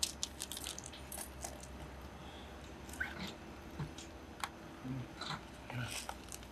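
Rustling and scattered small clicks of a bag being handled and rummaged through, over a steady low hum.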